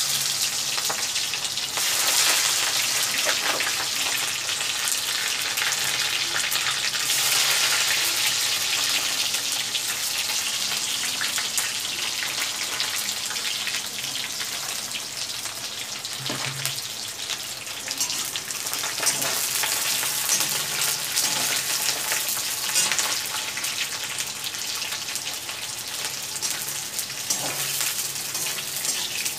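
Onion and potato pieces frying in hot oil in an iron kadai: a steady, loud sizzle full of crackles, strongest in the first several seconds and easing slightly after. Near the end a slotted metal spoon stirs them in the pan.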